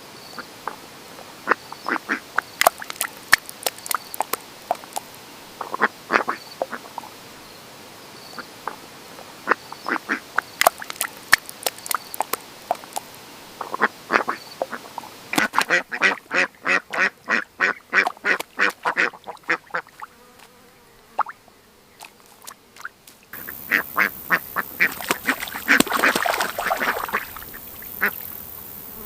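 Ducks quacking in short repeated calls, with a fast run of quacks, about four or five a second, about halfway through.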